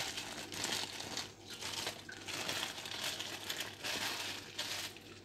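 Plastic packet crinkling and rustling as hands squeeze a sticky block of tamarind out of it into a glass bowl; quiet and irregular.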